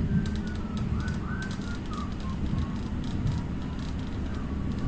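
An old Utrecht sneltram running along its track, heard from inside the car: a steady low rumble with light clicking. A few short wavering high tones come in the first two seconds.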